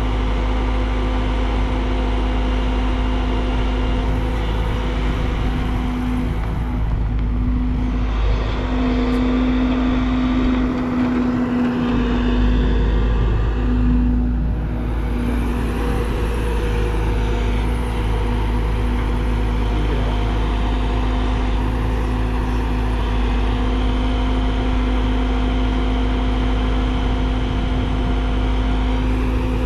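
Hyundai R140LC-9 crawler excavator's diesel engine running steadily under working load as it digs and swings, a continuous even drone that strengthens slightly about ten seconds in.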